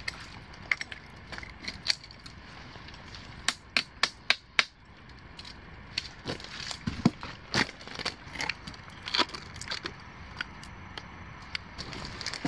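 Dead branches and twigs cracking and snapping as they are handled and trodden among mangrove roots, in irregular sharp snaps with a quick cluster of loud ones about four seconds in.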